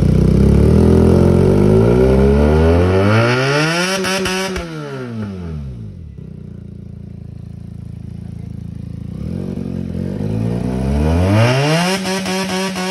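Benelli motorcycle engine with a loud exhaust being revved. The note climbs for about four seconds, drops back to a low idle, then climbs and falls again near the end.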